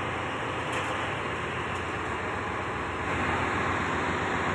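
Steady din of a ship's engine-room machinery and ventilation: a constant low hum with a hiss over it, a little louder from about three seconds in.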